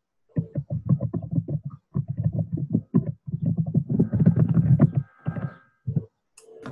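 Indistinct, choppy speech over a poor video-call audio link, too garbled to make out any words.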